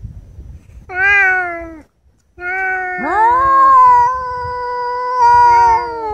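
Cats yowling at each other in a fight standoff. A short yowl comes about a second in and falls away at its end. Then, after a brief gap, long drawn-out yowls from two overlapping voices follow, one rising and holding a steady pitch.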